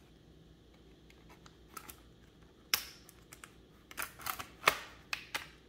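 Snap-fit clips of an HP EliteBook 840 G6's bottom panel popping loose as a thin plastic pry tool is run along the panel's edge. A few faint ticks come first, then a sharp click about two and a half seconds in, and a quick run of clicks in the last two seconds.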